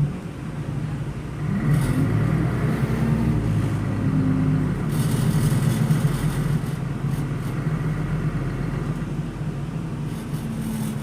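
DAF turbocharged inline six-cylinder diesel of a Solaris Urbino 12 LE city bus running with a steady low drone, louder from about a second and a half in. The engine's strong vibration is described as setting things in the passenger compartment rattling.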